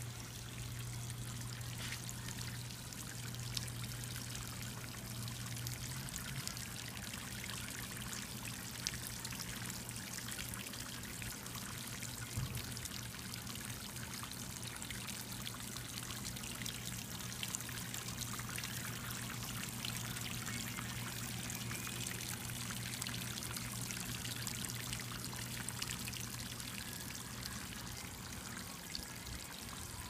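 Pump-fed stream of water falling from a watering-can fountain's spout and splashing steadily into a shallow tray of water, with a steady low hum underneath.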